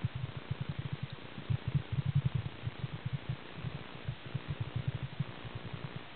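Muffled underwater noise picked up by a camera in a waterproof housing: a fast, irregular run of low thumps from water and handling against the case, over a faint hiss.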